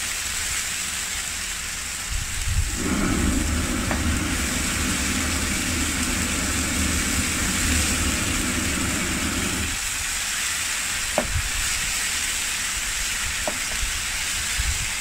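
Onion, ginger and garlic paste sizzling in hot oil in a non-stick pan, stirred with a spatula. From about three to ten seconds in, a low rumble joins as flames flare up over the pan. Near the end there are two light taps of the spatula.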